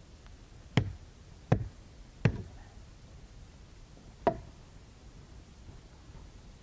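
Hatchet chopping firewood: four sharp knocks of the blade striking wood, the first three about a second apart and the last after a longer pause.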